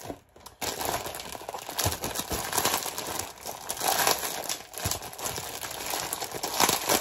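Packaging crinkling and rustling as it is handled and opened, a dense crackle of small clicks starting about half a second in.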